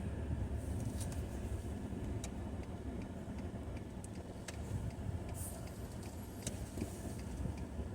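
Steady low road rumble of a car heard from inside the cabin while driving, with scattered light ticks and clicks.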